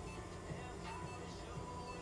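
Quiet background music: a melody of short held notes over a steady low hum.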